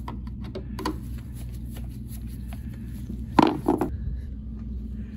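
Handling noises from hand tools and metal parts: scattered light clicks and taps, then two sharp knocks about three and a half seconds in, over a steady low hum.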